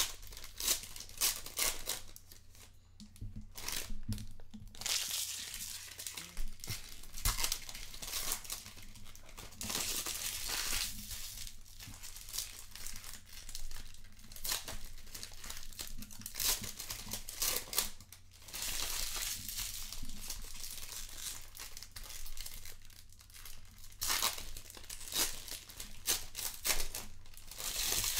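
Trading card pack wrappers being torn open and crinkled, in several bouts of rustling with sharp crackles and short pauses between them.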